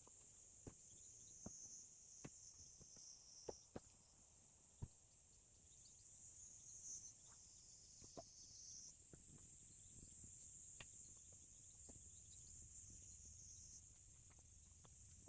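Faint, steady high-pitched insect chorus, with a few scattered light clicks and knocks.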